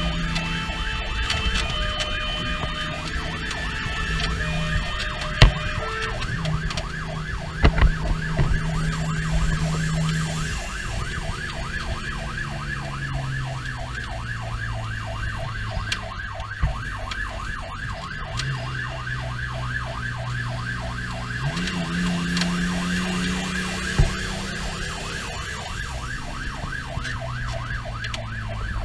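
Pierce fire engine's siren sounding while the truck drives to a call, heard from inside the crew cab. It opens with a few seconds of steady stepped tones, then runs as a fast, even warbling yelp. Under it, the engine note rises and drops as the truck shifts gears, with a few sharp knocks from the cab.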